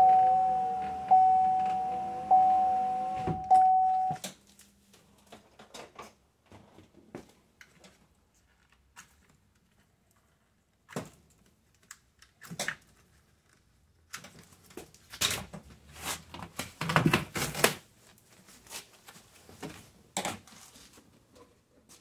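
Chevy Tahoe's warning chime dinging about once a second, each ding fading, stopping about four seconds in. Then scattered light clicks and knocks of hard plastic door trim parts being handled, loudest in a cluster a little past the middle.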